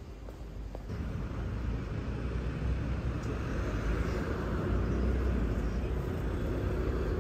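Small wheels of a rolling suitcase running over rough asphalt, a steady grinding rumble that starts about a second in and grows louder.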